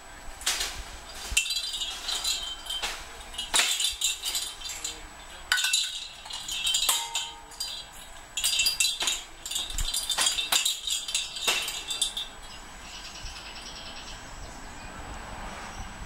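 Bell inside a small toy jingle ball jingling in repeated bursts, with sharp knocks as it is batted about, as an eclectus parrot plays with it. The jingling stops about twelve seconds in.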